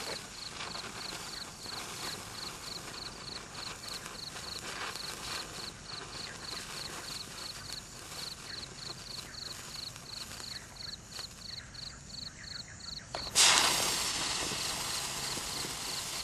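Neon sparkler burning with a steady crackle of spitting sparks. About three-quarters of the way through it suddenly flares into a much louder hissing burn that eases off slowly.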